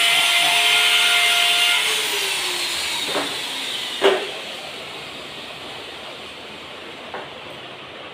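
Electric drill running against the wall with a steady whine, then released about two seconds in and spinning down with a falling pitch. A few sharp knocks follow, the loudest about four seconds in.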